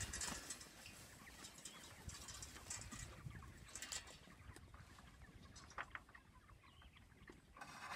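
Faint, scattered clucking and cheeping of a flock of chickens in a pasture shelter, a few short calls here and there over a quiet background.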